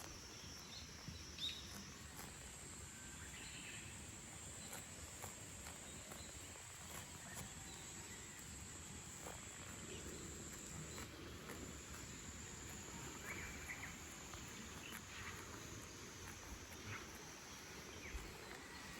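Insects buzzing in a steady, high-pitched drone, with scattered faint clicks and rustles.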